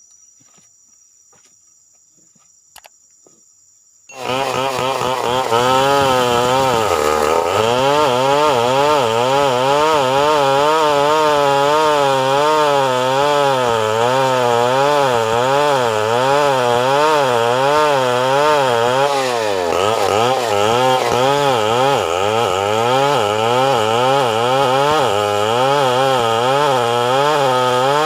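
Two-stroke chainsaw cutting wood under load, its engine pitch wavering up and down without pause. It comes in suddenly about four seconds in after a quiet start, and its speed sags twice briefly.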